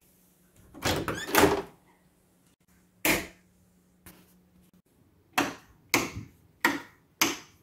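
An interior door with a lever handle is opened, with a cluster of latch clicks and knocks about a second in and another single knock about three seconds in. Near the end comes a regular run of four sharp knocks about 0.6 s apart.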